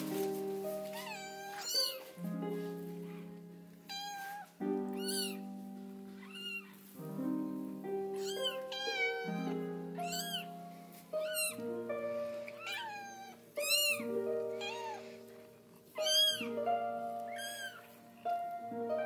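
Newborn kitten mewing in thin, high-pitched squeaks, over and over about once a second, over soft background piano music.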